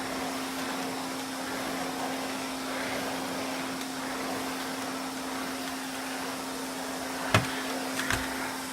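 Vintage Hoover Constellation 862 canister vacuum running steadily with its replacement original Constellation motor: an even rushing of air over a constant motor hum. A sharp knock comes about seven seconds in, followed by a couple of smaller clicks.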